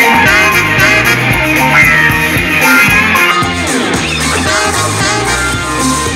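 Rock music with guitar played back through a portable Bluetooth speaker and recorded by a microphone as a speaker sound test.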